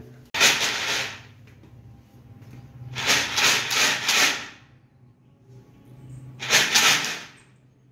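Dry cat food rattled in its container, shaken three times in short bursts of about a second each, to call cats to feed.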